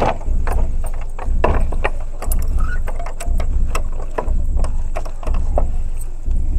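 Footsteps and small scattered clicks over a low background rumble that pulses about once a second.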